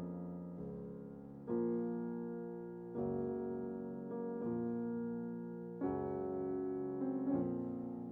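Background music: slow, held piano chords, a new chord struck every one to one and a half seconds and fading away between strikes.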